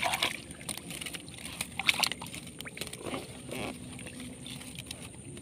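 Irregular small splashes and knocks in shallow swamp water as a set fishing line snagged under tree roots is worked free by hand.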